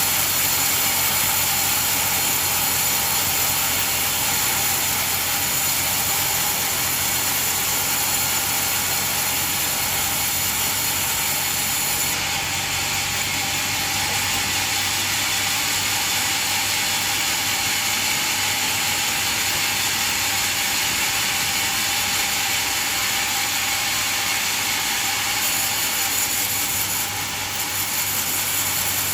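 Band sawmill running, a steady mechanical noise with a high hiss that changes slightly in tone about twelve seconds in.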